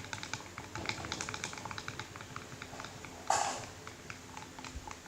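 Diluted glue with food colouring being stirred in a container, the stirrer clicking quickly and irregularly against the sides. A louder scrape about three seconds in.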